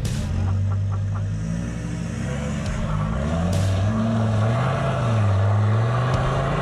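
Ford Ranger ute's engine working at low revs under load as it crawls over rocks, the revs rising and falling slowly as the driver feeds the throttle. A sharp knock comes at the start and another about three and a half seconds in.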